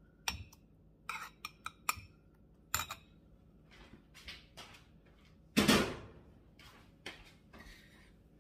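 Metal spoon clinking and scraping against a glass jug and a ceramic baking dish while stuffing is spooned out: several sharp clinks in the first three seconds. About five and a half seconds in comes one louder knock, then a few faint clatters.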